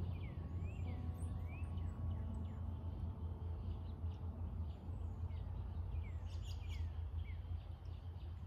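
A bird chirping over and over in short arched notes, over a steady low rumble.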